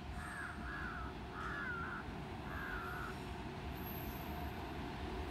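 A crow cawing four times in quick succession over a steady low rumble.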